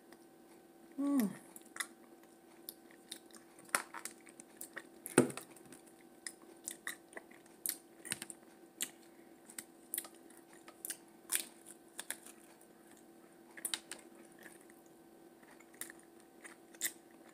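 Close-up chewing and eating sounds: scattered wet mouth clicks and smacks with occasional crunches, over a faint steady hum. A brief hummed "mm" comes about a second in.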